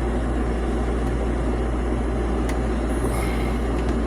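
Bosch electric dryer's drive motor running steadily with a low hum and an even whoosh of air, spinning freely with the drum standing still because the drum belt is broken.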